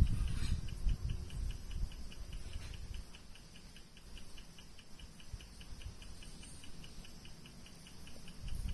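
Pulse acupuncture stimulator ticking steadily at about five short high-pitched ticks a second, in time with its electrical pulses. A low rumble is loudest at the start, dies away within about two seconds, and rises again near the end.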